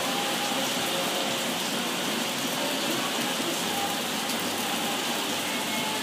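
Heavy rain falling steadily, an even hiss of drops on the garden and patio.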